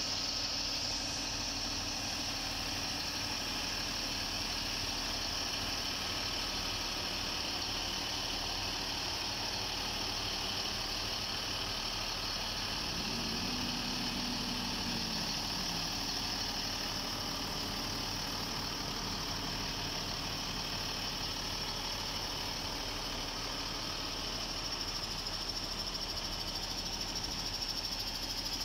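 The 140 hp Weichai diesel engine of a SADIN SD1404 tractor idling steadily, with a brief rise and fall in pitch about halfway through.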